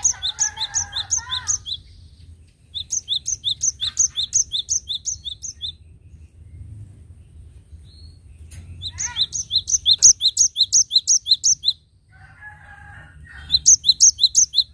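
Cinereous tit (gelatik batu) singing: runs of rapid, high, evenly repeated notes, about four or five a second, each run lasting two to three seconds. There are four runs, and some are met by lower, scratchy chattering notes.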